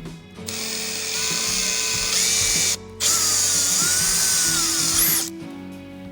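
Power drill cutting a 26 mm hole through the wall of a water tank, running in two spells with a short stop between, the cutter squealing as it bites.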